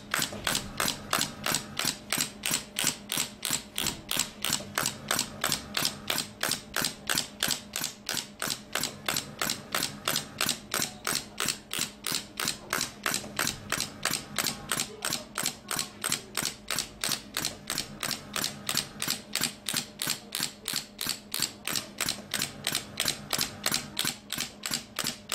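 Pneumatic shockwave therapy handpiece firing against the knee: a sharp click about three times a second at an even pace, over a steady low hum.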